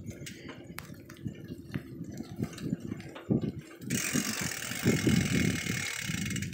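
Bicycle being ridden on a paved road: an uneven low rumble of the tyres and frame with scattered clicks and rattles. About four seconds in, a steady hiss starts and continues.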